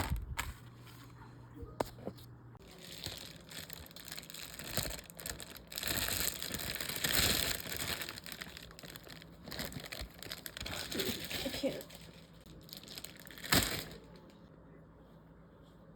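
Rustling and crinkling handling noises with scattered clicks, ending in a sharp knock near the end.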